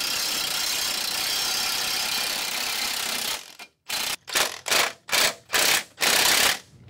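Masonry drill with a hollow, vacuum-attached bit boring a half-inch hole into a concrete foundation wall, running steadily for about three and a half seconds. Then an impact wrench drives a 4.5-inch concrete screw anchor in about six short bursts, the last one the longest.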